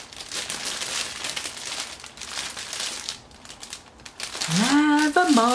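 Clear plastic packaging of a makeup brush set crinkling as it is handled, for about three seconds. Near the end a voice gives a drawn-out hum.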